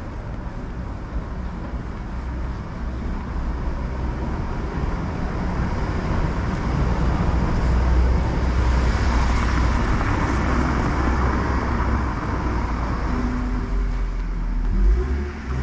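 A car passing close by on the street, its engine and tyre noise swelling to a peak about halfway through and then fading.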